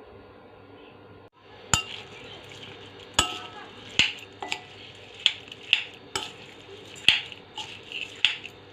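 A spoon clinking against a mixing bowl in a series of sharp, ringing strikes, irregular and about one or two a second, as stuffing ingredients and seasonings go into the bowl; the first second or so is quiet.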